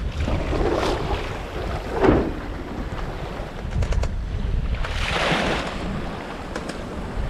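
Water rushing and splashing along the hull of a Comfortina 32 sailboat under sail in a choppy sea. Waves slap against the side three times, about a second in, about two seconds in and about five seconds in, over a steady rumble of wind on the microphone.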